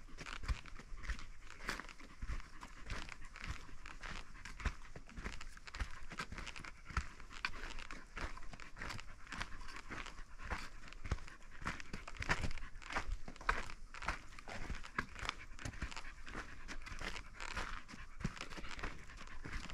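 Footsteps crunching on loose, freshly graded dirt and dry pine needles, a steady run of irregular crunches and scuffs as a person walks down a trail.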